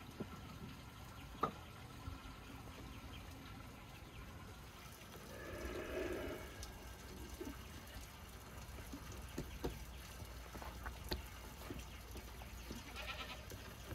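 A sheep or goat bleats briefly near the end over a faint steady background with scattered light knocks from handling on the table. About six seconds in there is a louder swelling sound as air is blown through a cane tube into a lamb's stomach to inflate it.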